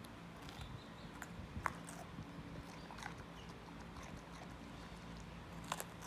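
Alaskan malamute chewing a raw green bell pepper: irregular wet crunches and clicks as the dog bites off and chews pieces, with two sharper crunches, one about a second and a half in and one near the end.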